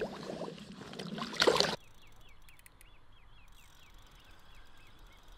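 Water sloshing and splashing as a carp is released from a wet retention sling into the lake, ending in a loud splash about a second and a half in. The splashing stops abruptly, leaving faint quiet with a quick run of short high chirps.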